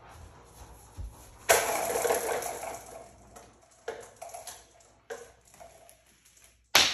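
Marbles rolling down a plastic marble-run track and spiral. A rushing rolling sound starts suddenly about a second and a half in and fades, followed by a few clicks of marbles against the plastic and a sharp clatter near the end.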